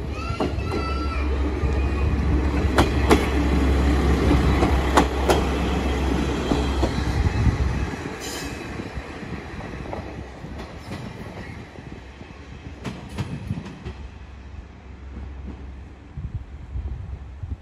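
KiHa 40-series diesel railcar passing close by: a loud diesel engine rumble, with the wheels clacking over rail joints in pairs twice. About eight seconds in the sound drops to a fainter engine note as the railcar moves away, with a few more clacks.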